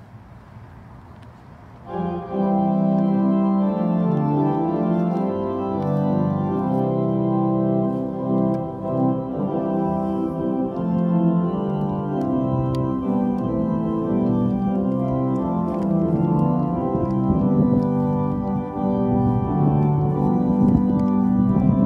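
Organ starting to play about two seconds in, holding full sustained chords that change every second or so.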